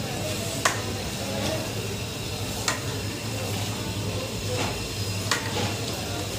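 A long metal paddle stirring chicken through a large steel pot of cream, ghee and yogurt, with a steady sizzle and bubbling from the hot pot. Three sharp knocks of the paddle against the pot, about two seconds apart. The chicken has just gone in and is starting to brown.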